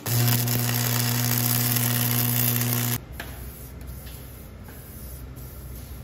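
Electric arc welder laying a weld: a steady electric buzz with hiss for about three seconds, then the arc cuts off suddenly.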